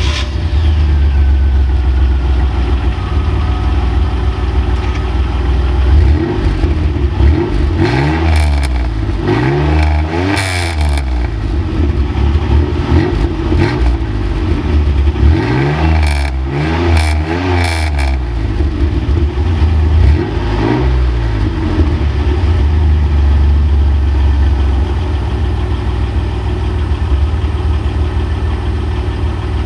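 Exhaust of a 1997 Chevy Camaro's 3.8L Series II V6 through a Cherry Bomb muffler, idling just after start-up. The engine is revved in two sets of quick throttle blips, each note rising and falling, then settles back to a steady idle.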